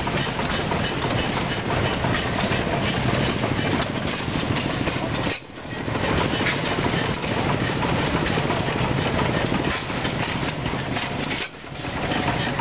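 A loud, steady mechanical clatter of machinery running, briefly dropping away about halfway through and again near the end.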